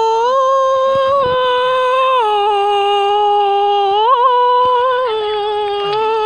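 A person's voice holding one long, loud sung note without a break. The pitch steps up shortly after the start, drops about two seconds in, wavers briefly about four seconds in, and rises again near the end before cutting off sharply.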